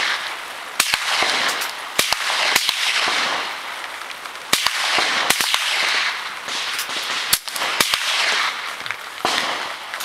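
Rifle shots from several shooters on a firing line during a timed string of fire: about ten sharp cracks at irregular spacing, some close together, each followed by a rolling echo.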